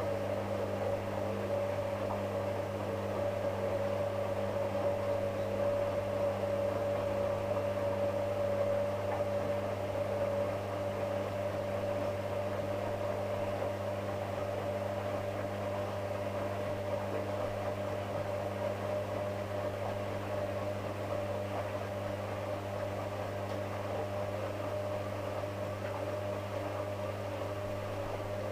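Hotpoint WM63 front-loading washing machine turning its drum of laundry on the final short spin: a steady motor whine over a low hum, holding one pitch, slightly louder in the first third.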